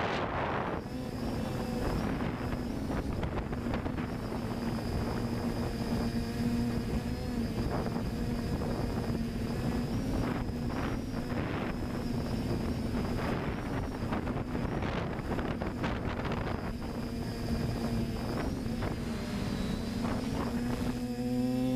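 FPV drone's electric motors and propellers humming at a steady pitch in flight, heard from the onboard camera, with wind buffeting the microphone. Near the end the pitch begins to swing up and down as the throttle changes.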